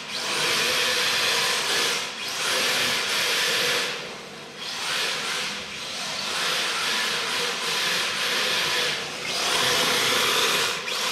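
Radio-controlled MST drift car sliding across a tiled floor: a steady hiss of its tyres scrubbing on the tiles over the whine of its electric motor. It drops away briefly a few times, most deeply about four seconds in.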